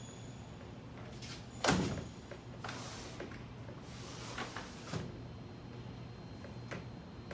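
Vinyl window sash being worked back into its frame: a sharp knock about two seconds in, then two stretches of sliding and rubbing, and a light tap near the end of the second.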